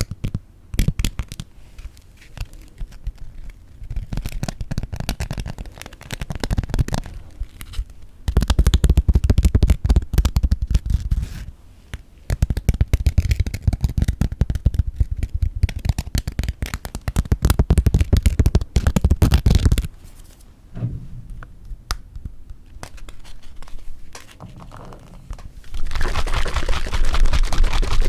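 Close-miked crunching and chewing of crisp toasted bread, in long stretches of crackly bites with a heavy low rumble. Near the end comes a steady hiss of about two seconds, the whipped cream being sprayed from its aerosol can.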